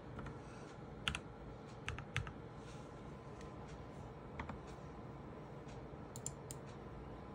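Scattered clicks of a computer keyboard and mouse, about seven sharp keystrokes and clicks in small groups, over a faint steady hiss.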